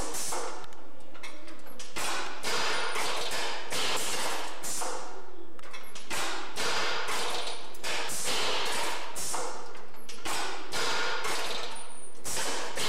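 A shop machine running, making a fast, steady series of metallic knocks and clanks, about two to three a second.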